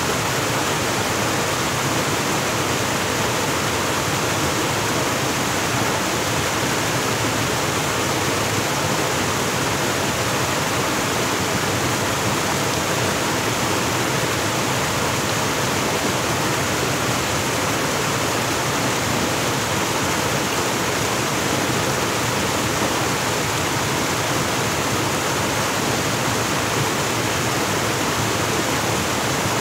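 Steady rushing of water falling into a pool from a small waterfall, an even, unbroken noise that does not change.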